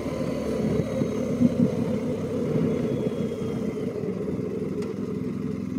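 BMW GS motorcycle's boxer-twin engine running steadily as the bike is ridden.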